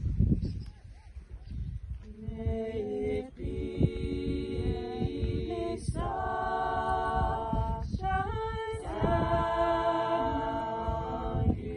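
Small mixed-voice choir of men and women singing a cappella in held chords, starting about two seconds in and pausing briefly between phrases. Before the singing starts, a low wind rumble on the microphone.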